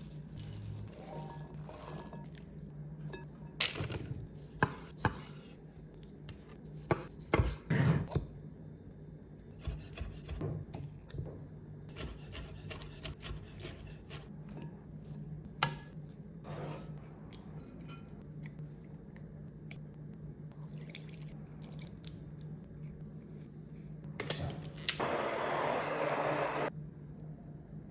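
Kitchen food-prep sounds: scattered knocks and clicks of utensils and containers over a steady low hum, then about two seconds of liquid running or pouring near the end.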